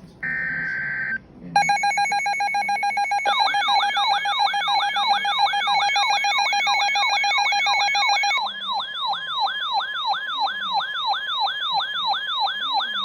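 Emergency Alert System tones on broadcast radio. First comes the last second-long burst of a SAME digital data header. Then the steady two-tone EAS attention signal sounds, joined a couple of seconds later by a fast yelping siren of falling sweeps, about two and a half a second, which carries on alone after the attention tone stops about eight seconds in. These tones open a new alert, here a severe thunderstorm warning.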